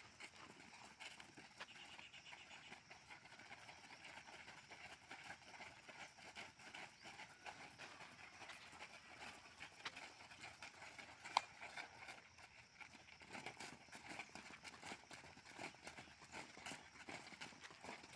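Faint, repeated thuds of many feet landing on a dirt ground as a group does jumping warm-up drills, with one sharp click about eleven seconds in.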